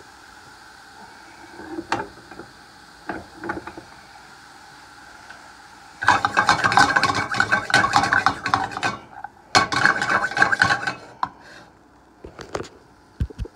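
Mushrooms and garlic being stirred in a nonstick frying pan. A few light knocks come first, then two stretches of busy scraping and clatter of a utensil against the pan, about three seconds and then a second and a half, over a steady hum.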